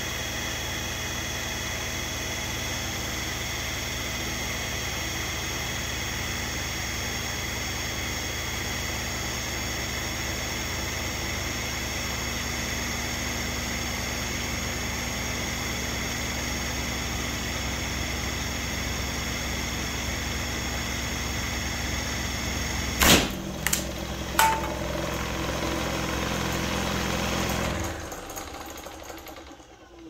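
Hoverboard hub motor driving a plastic fan propeller at close to 1500 RPM, running with a steady high whine over a low hum. About 23 seconds in there is a sharp loud crack and two more impacts as the plastic prop blade bursts apart. The running goes on a few seconds more, then dies away near the end.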